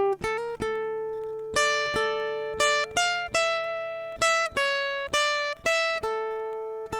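Plucked string instrument playing a slow melody of single notes, each struck sharply and left to ring, a few sliding up in pitch.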